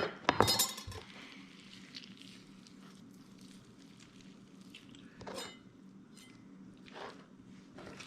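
A short clatter of hard knocks from a knife and utensils against a cutting board in the first second, then quiet handling of raw venison as the muscles are pulled apart, with a few soft, brief wet sounds.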